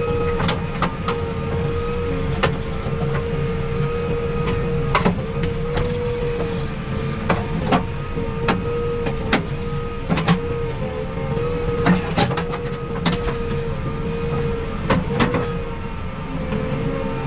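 JCB 3DX backhoe loader working, its diesel engine running steadily under load with a constant whine. Many sharp knocks and clatters sound irregularly throughout.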